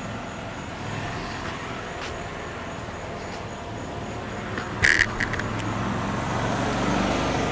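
A car engine running with a steady hum that grows a little louder in the last couple of seconds, and a sharp click about five seconds in.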